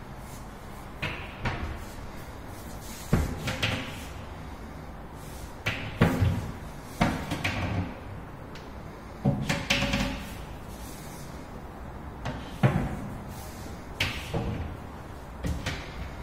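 Hinged modular kitchen cabinet doors being opened and shut one after another, each shutting with a wooden knock; about eight knocks, some coming in quick pairs.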